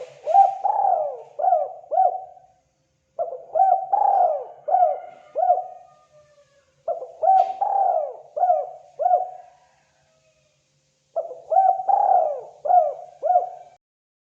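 Spotted dove (terkukur) giving its calling coo: four phrases, each a quick run of about five cooing notes lasting about two and a half seconds, separated by short pauses.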